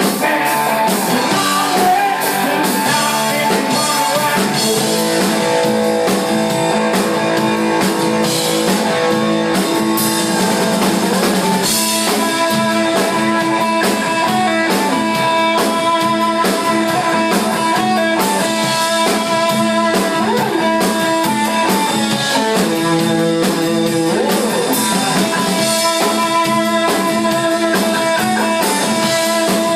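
Live rock band playing: electric guitar, electric bass and drum kit going together steadily.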